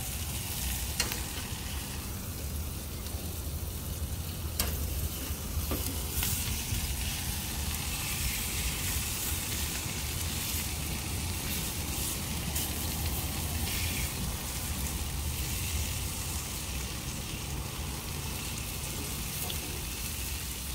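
Ribs, chicken and sausages sizzling on a barbecue grill over glowing coals, a steady hiss, with a few sharp clicks about 1, 4.5 and 6 seconds in.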